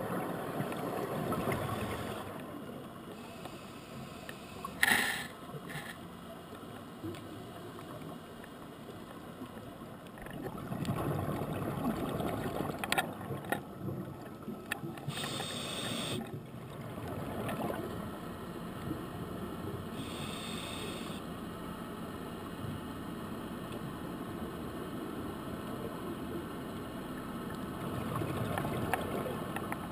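Scuba diver breathing through a regulator underwater: several rumbling bursts of exhaled bubbles, with a few short hissing inhalations in between.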